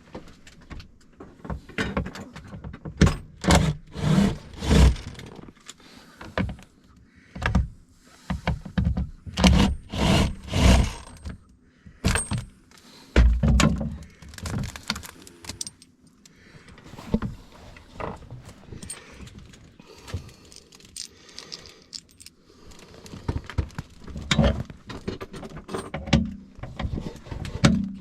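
Irregular clinks, knocks and rattles of parts and hardware being handled and pulled out, with scattered louder thunks.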